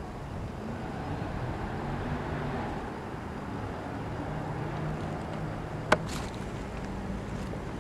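Steady outdoor background rumble with a faint low hum, and one sharp click about six seconds in.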